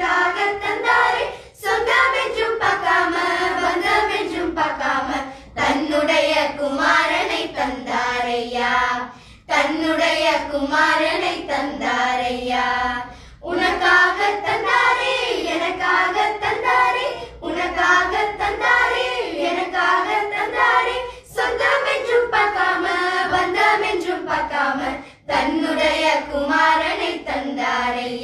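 A group of girls singing a Tamil Christian song together, in phrases of a few seconds with short breaks between them.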